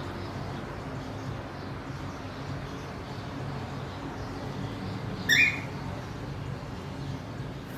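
A cockatiel gives one short, slightly rising chirp about five seconds in, over a steady low background hum.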